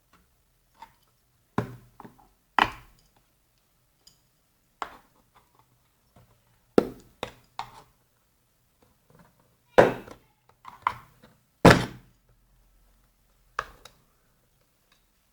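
Irregular knocks and clunks of hard objects being handled and set down, about a dozen sharp hits with uneven gaps, the two loudest in the second half. These are the sounds of work on the central-locking vacuum pump.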